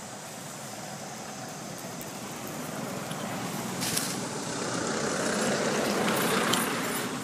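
A motor vehicle passing by: a rush of engine and road noise that swells over a few seconds and fades near the end. A single sharp click about four seconds in.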